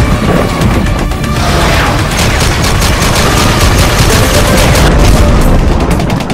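Animated intro music with sound effects of a boom and rapid volleys of gunfire, the shots coming thick and fast through the middle and later part.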